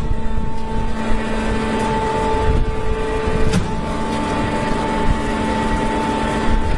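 Hydraulic straw baler running: a steady machine hum with a held whine over it, and one sharp click about three and a half seconds in where the whine's pitch shifts.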